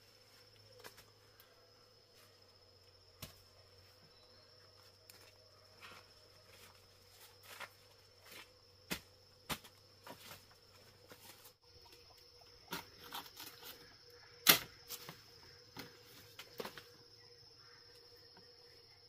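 Scattered light knocks and clicks of a person climbing a bamboo ladder and handling a banana bunch, with one sharper knock about three-quarters of the way in. A steady high insect trill runs underneath.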